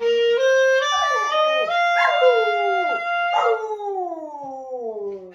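A labradoodle howls along to a clarinet. The clarinet plays a rising run of notes, holding the top one, while the dog's howls slide down in pitch over it. About three and a half seconds in, the clarinet stops and one long falling howl carries on.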